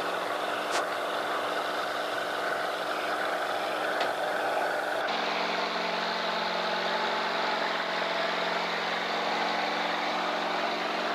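Large farm tractor's diesel engine running steadily under load as it pulls a chisel plow.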